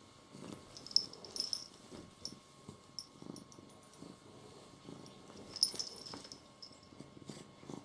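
Domestic cat purring, swelling and fading with each breath, with a few sharp clicks, the loudest about a second in and again near six seconds.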